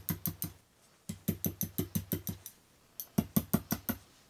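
Hammer tapping a screw point into a wooden board to punch small wormhole dents: three quick runs of light, ringing strikes, about seven a second, with short pauses between runs.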